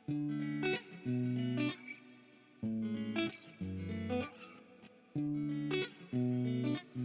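Background music: electric guitar playing short sustained chords in stop-start phrases.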